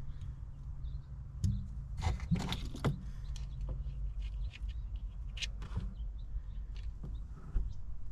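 Short metallic clicks and knocks of tools and parts being handled while a car battery is fitted, with a burst of them about two to three seconds in and a couple more around the middle, over a steady low hum.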